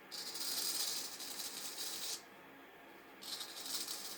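Vintage straight razor shaving hair in a shave test of its freshly honed edge: two long, crisp scraping strokes, the first lasting about two seconds and the second starting about three seconds in.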